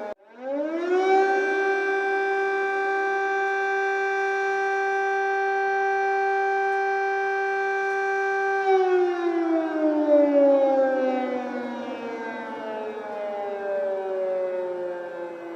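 Ukrainian civil-defence air raid siren. After a brief break near the start it rises quickly in pitch and holds a steady wail for about seven seconds, then winds down in a long, slowly falling glide.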